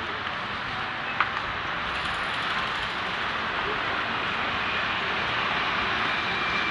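City street traffic: a steady wash of noise from passing motorbikes and cars, with one sharp click about a second in.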